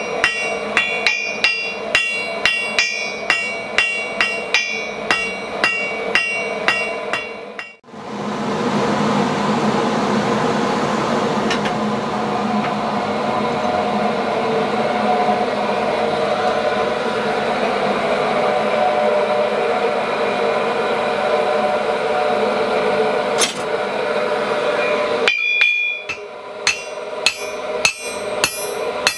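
Blacksmith's hammer striking hot iron on an anvil at about two blows a second, each blow ringing, as a nail is forged. About eight seconds in it cuts to a steady rushing of the coal forge fire, and the ringing hammer blows return near the end.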